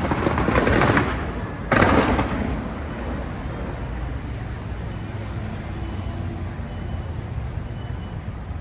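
Fireworks exploding: a loud burst in the first second, then a sharp bang just under two seconds in that dies away, followed by a steady low rumble.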